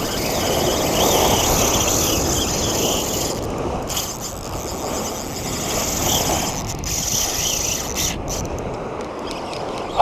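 Wind buffeting the microphone in a steady rush, over small waves washing up on the sand.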